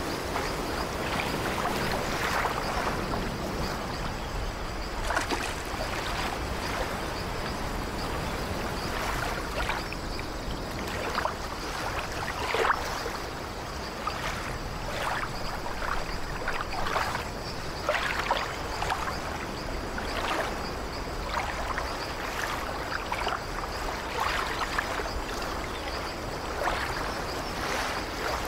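Sea water lapping and splashing in small waves, a steady wash broken by many short gurgling splashes.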